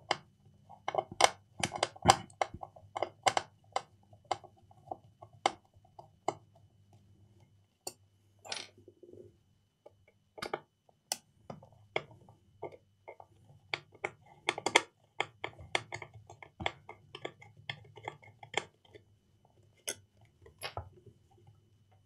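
Screwdriver working on the small screws of a circuit board inside a plastic autopilot housing: irregular sharp clicks, taps and small scrapes of metal on screws and plastic as the board is unscrewed and handled, over a faint low hum.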